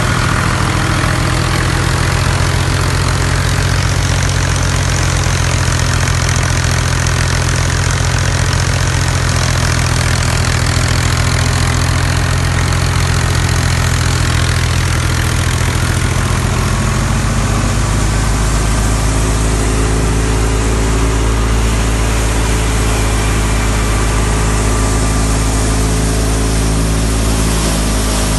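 Fiat 480 tractor's three-cylinder diesel engine running steadily under load while driving a wheat thresher, together with the thresher's running machinery. About two-thirds of the way through the sound turns to a deeper, fuller hum.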